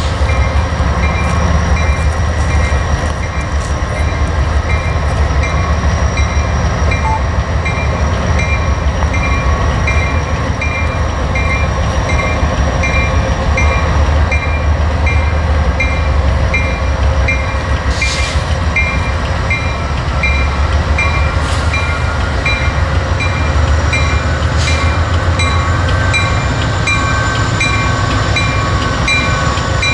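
CSX diesel-electric locomotive rolling slowly through a rail yard, its engine giving a deep, steady rumble, with a bell ringing in a steady rhythm of about one and a half strokes a second.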